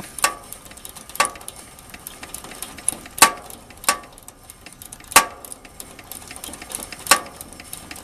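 Refrigeration service wrench ratcheting on a heat pump's suction service valve stem as it is turned open to let the pumped-down refrigerant back into the line set. About six sharp metallic clicks come at uneven gaps of one to two seconds, the loudest two about three and five seconds in.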